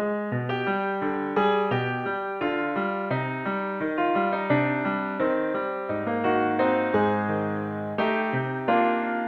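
Background music: a gentle piano melody of struck notes over a repeating low bass note, at an even unhurried pace.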